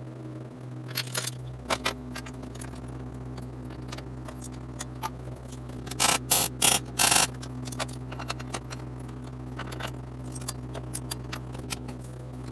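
Arc welder laying four quick tack welds on steel slats, each a short crackling burst, bunched together about six seconds in. Under them is a steady low electrical hum, and a few light metal clinks come early on as the steel pieces are set in place.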